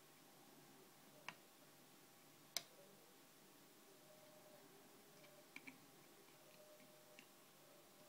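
A 2-in-1 lever lock pick working inside a 7-lever lock, giving a few separate small metallic clicks over near silence: the loudest about a third of the way in, a quick double click past the middle, and one more near the end.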